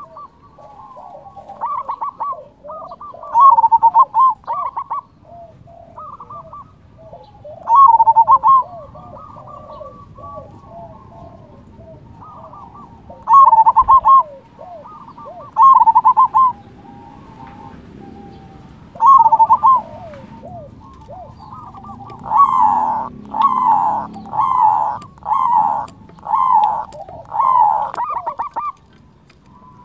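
Zebra dove (perkutut) singing its staccato cooing song in loud repeated phrases, spaced a few seconds apart at first and then coming in a quick run near the end, with softer cooing between the phrases.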